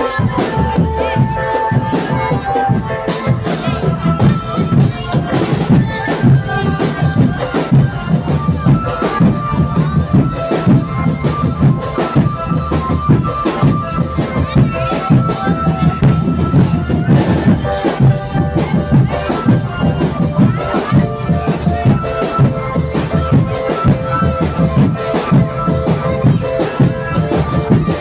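Marching drum band playing live: a dense, driving drum beat with a melody held over it, without a break.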